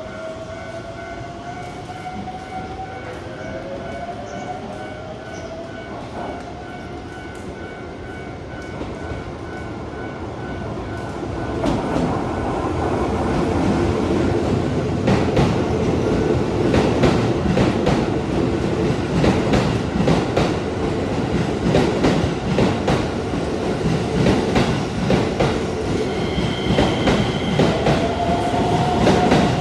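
Keisei 3000-series electric multiple unit running along the platform, getting louder at about 12 s as its wheels start clacking over the rail joints. A whine rising in pitch is heard at the start and again near the end.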